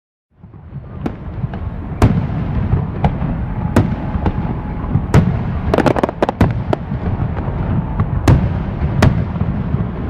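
Fireworks going off. A continuous low rumble builds from silence over the first second or two. Sharp bangs cut through it roughly once a second, with a quick run of crackling pops about halfway through.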